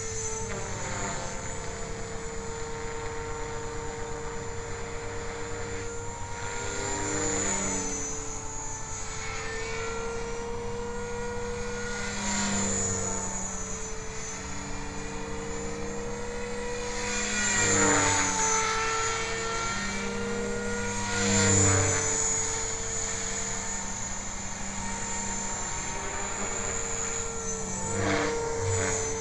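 Align T-Rex 500 ESP electric RC helicopter in fast forward flight: a steady whine from its motor and rotor, swelling and bending down in pitch several times as it makes passes, loudest about two-thirds of the way in.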